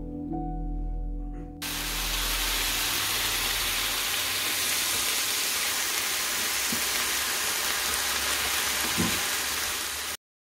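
A steady, even hiss that starts suddenly as the music stops, then cuts off abruptly near the end.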